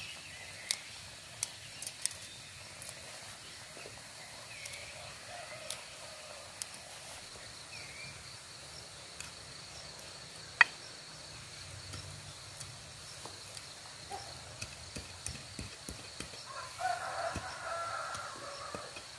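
Quiet rural ambience: a faint steady high hum, scattered short bird chirps, and a chicken calling near the end. Over it come occasional small clicks and taps from a knife cutting chillies over a stone mortar, one sharper tap about halfway through.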